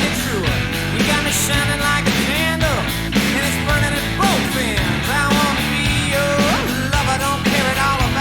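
Southern rock band recording playing an instrumental passage: a lead line bending up and down in pitch over steady drums and bass.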